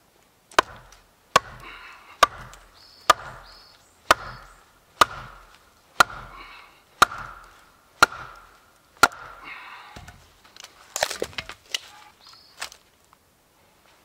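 A wooden club beating the back of a hatchet head to drive the blade down into a log: about ten sharp knocks, roughly one a second, each with a short ring from the steel. Near the end comes a burst of crackling as the log splits apart.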